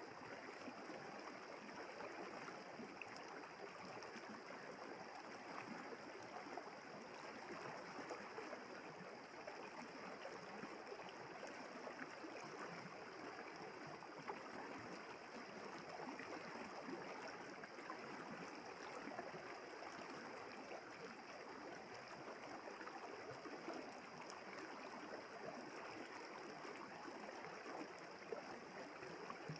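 River water flowing and babbling steadily.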